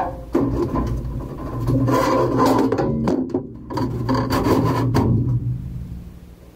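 Scraping, rubbing and knocking as someone climbs into a stripped aluminum boat hull and moves about on it while handling the framing. The noise fades over the last second or two.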